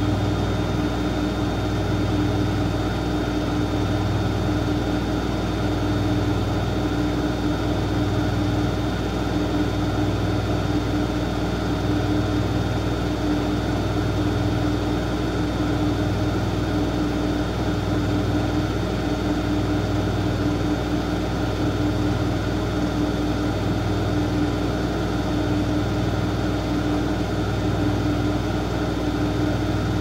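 Siemens Siwamat iQ front-loading washing machine running: a steady machine hum with a sustained mid-low tone that swells and fades slowly, about every two seconds.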